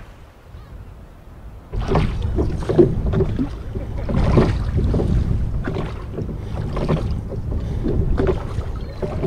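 Hand-rowed boat under way: oars dipping and pulling through the water with repeated splashes and knocks, starting about two seconds in, with wind buffeting the microphone.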